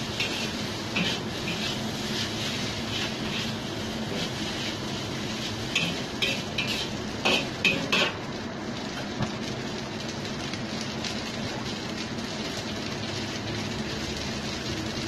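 Metal spatula scraping and clinking against a wok as noodles are stir-fried, over a steady sizzle. The scraping stops about eight seconds in, leaving only the sizzle.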